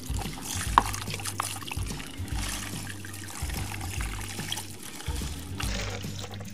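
Water trickling and splashing as a toy excavator is washed clean of sand, with a few light plastic knocks and a low steady hum underneath.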